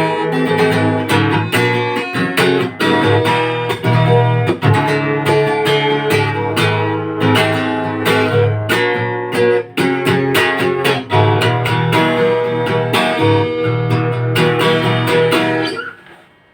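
Guitar strumming chords in a steady rhythm as the song's closing instrumental part, stopping shortly before the end.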